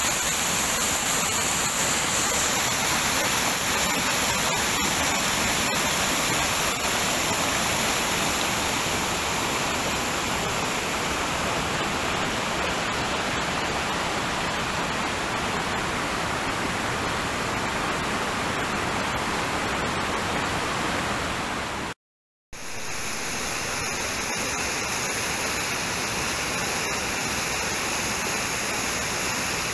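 Small rocky stream cascading over boulders: steady rushing of white water, cut off completely for about half a second some twenty-two seconds in, then resuming.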